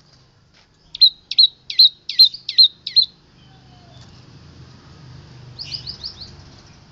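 Long-tailed shrike (cendet) singing its mimicked 'isian' phrases: six loud, sharp, falling notes in a steady run of about two or three a second, then a quick chatter of about five short notes near the end.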